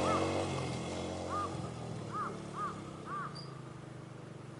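A crow cawing about five times in short, separate calls, over a low engine hum that fades away.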